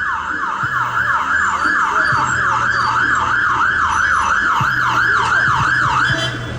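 Electronic siren of a Renault Master emergency ambulance sounding a fast yelp, its pitch sweeping up and down about four times a second, then cutting off near the end.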